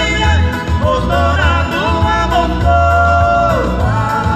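Live música caipira: two male voices singing together in harmony over acoustic guitar and keyboard, with a strong pulsing bass line, played through a PA.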